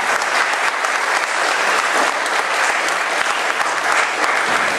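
Audience applauding, a dense steady clapping that carries on through the whole stretch.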